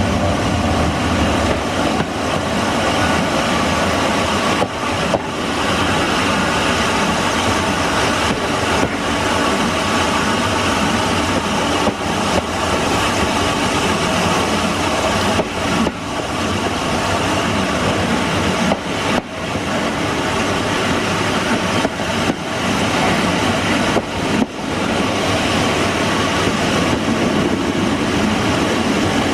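Heritage passenger train rolling along the track, heard from its rear cab: steady wheel-on-rail running noise with a few scattered clicks, some in close pairs.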